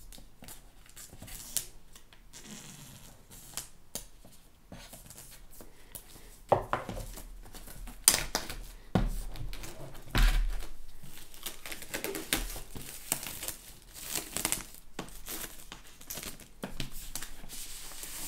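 Plastic shrink-wrap film being torn and peeled off a cardboard box, crinkling, with sharp rips at irregular moments that come thicker from about a third of the way in.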